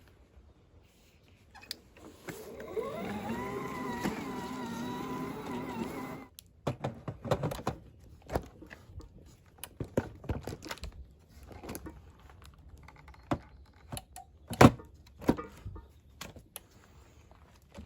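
Clicks and knocks of the mower's 48-volt batteries being handled and set into their charger, scattered irregularly, the loudest about two-thirds of the way through. Before them, about two seconds in, a pitched whine with a slight waver runs for about four seconds and cuts off suddenly.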